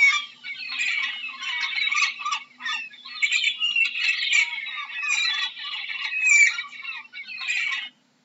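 Gulls calling: a steady run of short, overlapping calls, broken by brief pauses about two and a half seconds in and again near the end.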